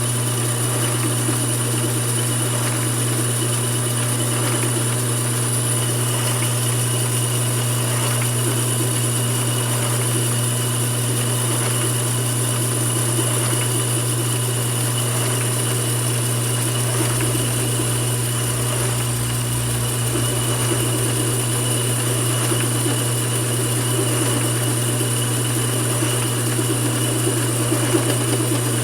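Mini lathe running steadily: a constant motor hum with a steady high-pitched whine over it.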